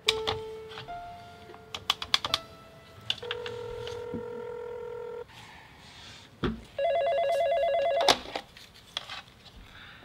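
Telephone call being put through: a few quick clicks, then a steady tone of about two seconds, then the loudest sound, a telephone ringing with a rapid warble for just over a second.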